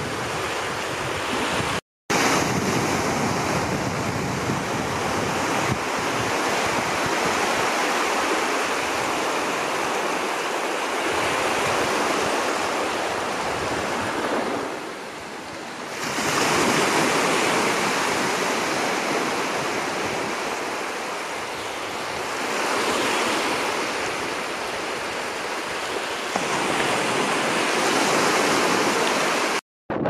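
Sea surf washing in and breaking on a shore, swelling and easing over several seconds, with wind on the microphone. The sound cuts out for an instant twice.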